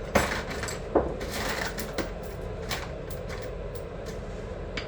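Steel bolts clicking and clinking against a BMW differential housing as they are set in and started by hand, a few sharp knocks near the start and about a second in, then lighter clicks.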